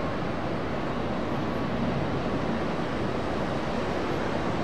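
Airliner jet engines heard from the airport apron edge, a steady, even rushing noise with no clear whine and no rise or fall.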